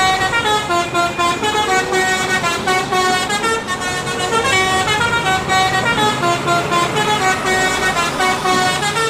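Background music: a melody of sustained, horn-like notes stepping from pitch to pitch.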